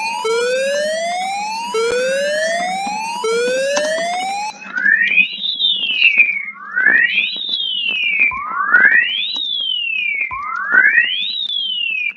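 Electronic emergency-alert alarm tones. First come three rising sweeps of about a second and a half each. About four and a half seconds in, the pattern changes to four sweeps roughly two seconds apart, each rising sharply and then falling back.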